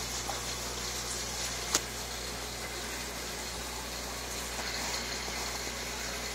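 Aquarium bubbler and filter running: a steady bubbling hiss over a low hum, with one sharp click a little under two seconds in.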